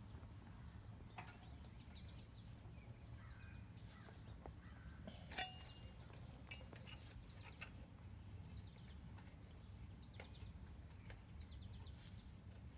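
Near silence with a low steady hum, broken by a few light metal ticks and one sharper clink about five seconds in, from a hand tool on the bearing caps of an upturned BMW M50 engine.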